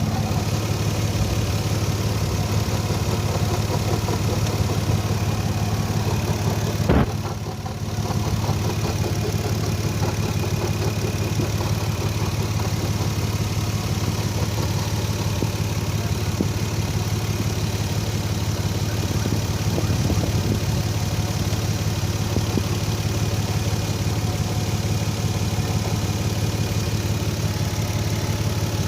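Car engine idling steadily, with a sound that the owner takes for an exhaust leak or a bad catalytic converter, along with a weird noise he hears at idle. A single sharp knock sounds about seven seconds in.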